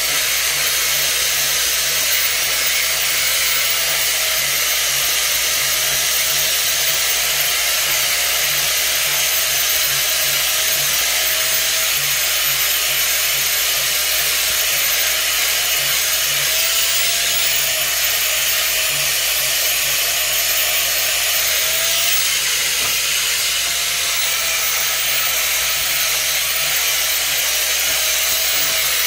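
Steady, loud machine noise: a motor running with a hiss and a faint wavering whine over a low hum.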